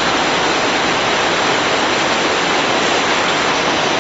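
Chewing gum production machinery running: a loud, steady, even hiss-like noise with no rhythm or distinct tones.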